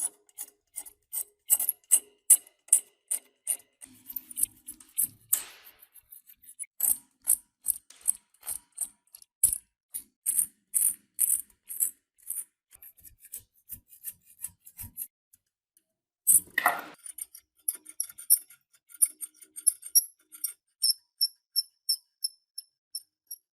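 Hand-tool strokes scraping rusty metal, quick and rhythmic at about two to three strokes a second. There is a longer, louder sweep about five seconds in and again past the middle, and lighter, faster ticks near the end.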